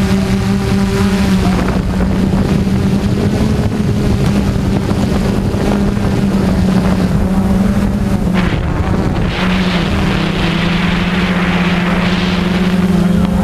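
A multirotor drone's motors and propellers humming steadily: one buzzing tone with overtones that shifts in pitch a little past the middle. Wind noise on the microphone, with a louder hiss for a few seconds in the second half.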